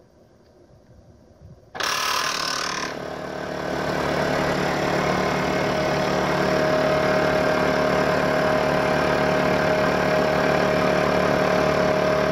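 Bauer Junior II high-pressure breathing-air compressor, electrically driven, switching on about two seconds in with a bright, noisy first second, then running steadily as it builds pressure to fill a breathing-apparatus cylinder.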